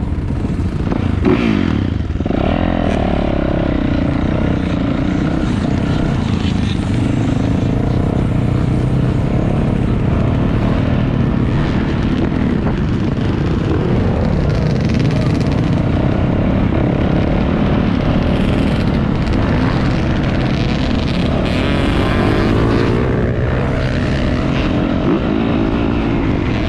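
Motocross dirt bike engine running loudly throughout, its pitch rising and falling as the throttle is worked.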